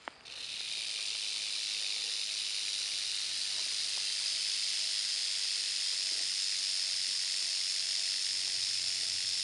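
Timber rattlesnake rattling its tail, a steady high buzz that starts just after the beginning and holds without a break: the warning rattle of a coiled rattlesnake that feels threatened.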